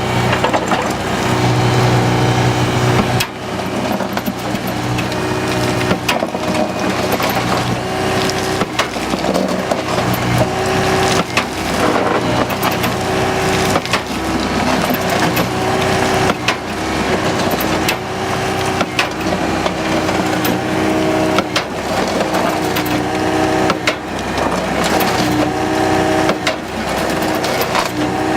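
Anross CB100 Crusha bucket on a Takeuchi TB175 excavator crushing concrete and sandstone: sharp cracks and crunches of breaking lumps, about one a second, over the excavator's steadily running diesel engine, whose note steps up and down as the hydraulic breaker circuit drives the crushing jaw.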